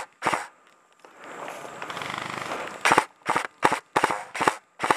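Airsoft gun firing single shots: one shot just after the start, then after a pause about two seconds of rushing noise, then a steady run of shots at roughly two to three a second.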